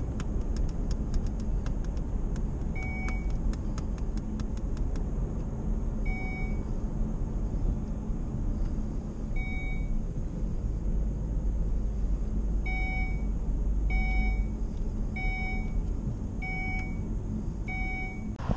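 Steady road and engine rumble inside a moving Volvo car, with a short electronic chime beeping at intervals, a few seconds apart at first and then about once every second and a bit from halfway on.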